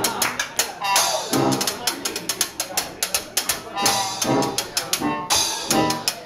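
Live jazz band playing: a washboard scraped and tapped in a fast, even rhythm, with tuba, trumpet and piano coming in in phrases.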